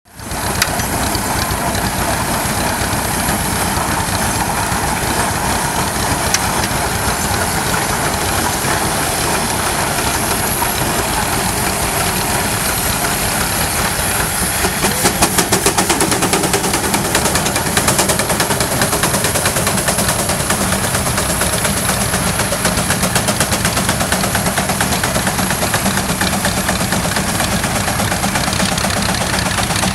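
J.I. Case steam traction engine working under load pulling a subsoil plow: a steady, rapid chuffing beat from the engine with steam hiss, growing a little louder about halfway through.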